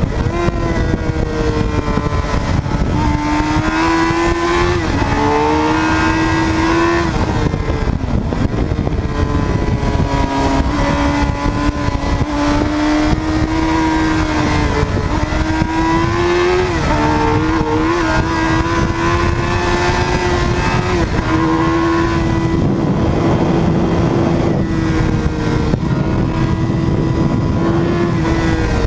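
Suzuki GSX-R 750 inline-four engine under way at speed, its note climbing and dropping several times with throttle and gear changes. Heavy wind rumble on the camera microphone runs underneath.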